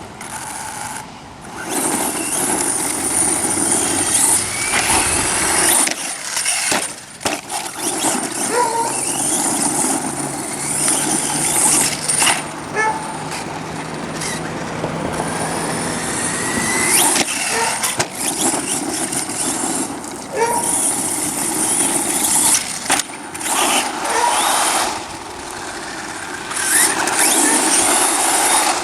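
Redcat Volcano EPX Pro brushless electric RC monster truck being driven hard over rough ground: the electric motor whines up and down in pitch with the throttle over a steady rush of tyre noise, with several sharp knocks from bumps and landings.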